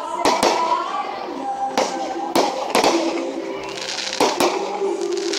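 Aerial fireworks shells bursting in a string of sharp bangs, some in quick pairs, with crackling between them.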